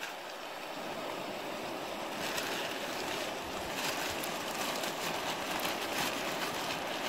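Steady rushing noise of flowing river water and wind outdoors, with faint crinkling of a plastic bag as chopped tomatoes are tipped into a steel cooking pot.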